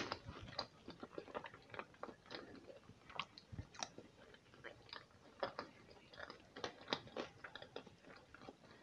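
A person chewing a mouthful of sushi roll close to a clip-on microphone: many small, irregular mouth clicks and bites, a few louder than the rest.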